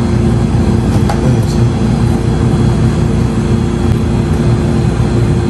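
Loud, steady low machine hum with a constant tone running under it, and two faint clicks about a second in.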